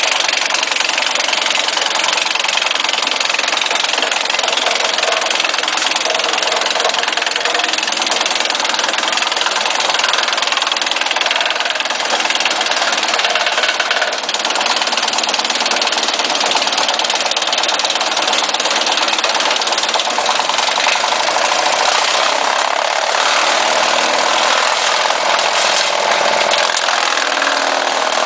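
Tractor-driven PTO wood chipper (WC-8) running steadily, the tractor engine and spinning chipper loud and even throughout.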